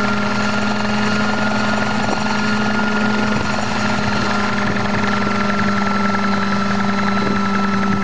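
A homemade single-seat helicopter running with its main rotor spinning: a steady engine hum with a higher whine over it, holding an even level throughout.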